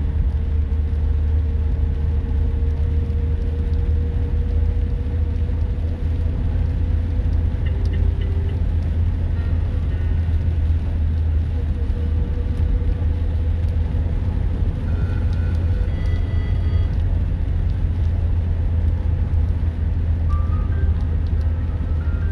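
Car driving, heard from inside the cabin: a loud, steady low rumble of engine and road noise with a faint steady hum above it.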